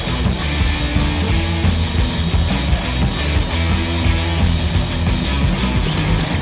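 Loud rock music with a driving drum beat and heavy bass.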